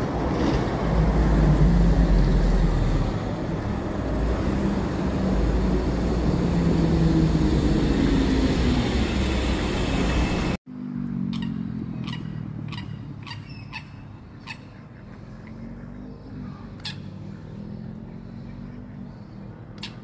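Road traffic running past on a city street: a loud, steady rush with a low engine hum. About halfway through it cuts off abruptly to a quieter outdoor background, with a run of short, sharp clicks.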